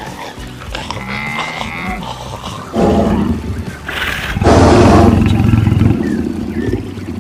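A string of animal call sound effects laid over each other, fairly soft at first; loud calls follow from about three seconds in, the loudest lasting about a second and a half.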